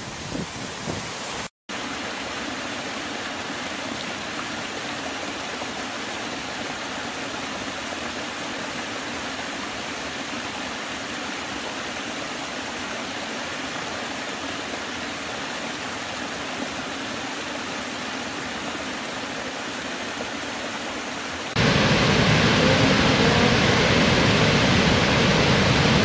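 Rushing water from a run of different waterfalls. First a river pouring over a falls, with wind on the microphone. After a brief cutout about a second and a half in, a small forest cascade gives a steady, even rush. Near the end the sound switches suddenly to a much louder, deeper rush of a large waterfall.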